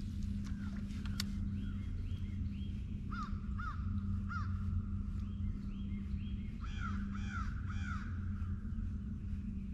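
Crows cawing in two runs of three caws, about three seconds in and again about seven seconds in, with other repeated higher bird calls and a steady low hum underneath.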